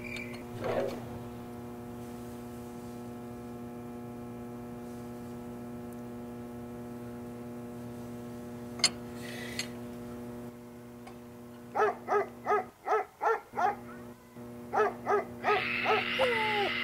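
A dog barking late on in two quick runs, about three barks a second, over a steady low electrical hum.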